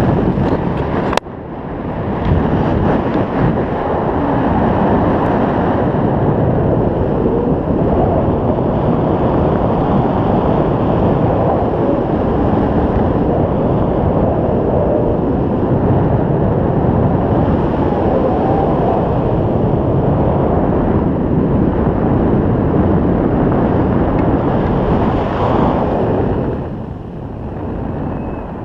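Steady wind noise on the microphone of a camera carried in free paraglider flight, the airflow rushing over it without a break. There is a sharp click about a second in, and the wind eases briefly near the end.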